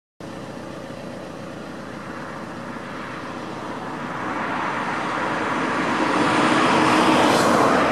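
A passing vehicle's engine and rushing noise grows steadily louder as it approaches, peaking near the end.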